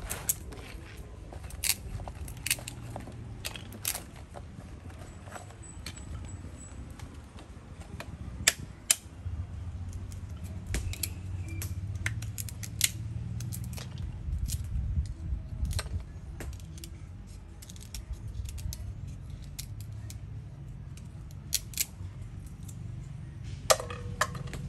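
Knife blade and fingers working the husks off oyster nuts, giving irregular sharp clicks and snaps as the coverings are cut and cracked, over a low rumble.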